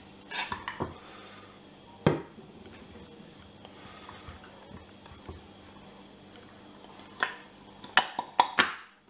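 Metal camping cook pot and gas canister knocking and clinking on a worktop as a cloth bag is pulled off them. There are a few sharp knocks just after the start, a single one about two seconds in, and a quick run of knocks near the end.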